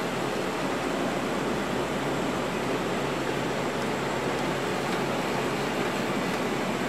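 Steady cockpit noise of a Lockheed L-188 Electra descending on approach: the even drone of its four Allison 501 turboprop engines and propellers blended with airflow rush, with a faint low hum and a thin high whine running under it.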